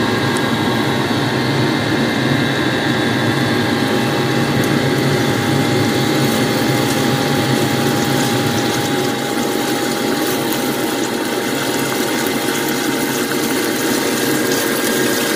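Pork strips sizzling in hot oil in a frying pan, over a steady motor hum.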